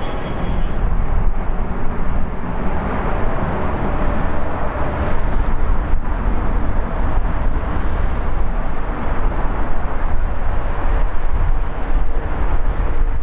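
Airbus A320-211's CFM56 jet engines at takeoff power: the fan whine dies away in the first second, leaving a loud, rough, steady rumble of jet roar.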